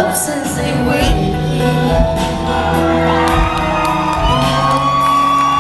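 Live country band with a woman singing into a microphone, drums hitting through it. She holds one long note over the last couple of seconds while the audience shouts and whoops.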